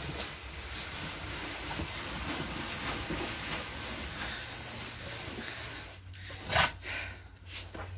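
A large cardboard bike box scraping steadily as it is pushed and dragged across carpet, with one sharp knock near the end.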